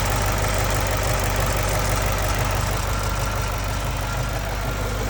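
2010 Mustang GT's 4.6-litre three-valve V8 idling steadily, with the light ticking of its fuel injectors.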